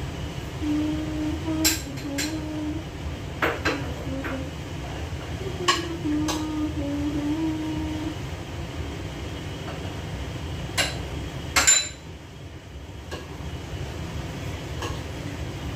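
Pots and dishes clinking and knocking as they are handled at a kitchen sink: scattered single strikes, with the loudest clatter a little past two-thirds of the way through, over a steady low rumble.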